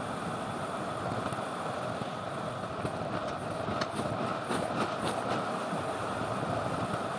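Steady rush of wind over the microphone mixed with road-bike tyres rolling on asphalt during a fast downhill run, with a few light clicks near the middle.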